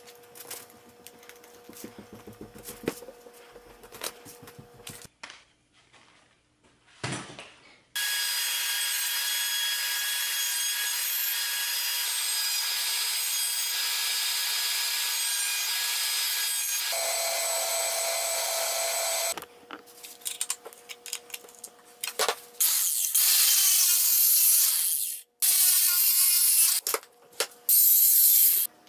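Clicks of a bar clamp being ratcheted tight on a glued board, then a router running steadily for about eleven seconds as a wooden board's edge is routed on a router table, then an angle grinder cutting through a metal rod in a vise in several loud bursts.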